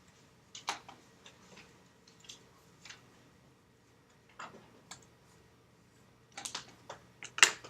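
Graphite pencil making short, scattered strokes and taps on paper, about a dozen irregular scratchy ticks, with a cluster near the end and the loudest just before it ends.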